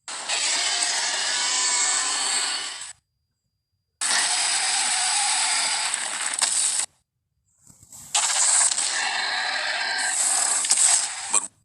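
Three separate Spinosaurus vocalisation sound effects, rough and noisy roars or growls, each about three seconds long with a second of dead silence between them. They sit mostly in the middle and upper range with little deep rumble.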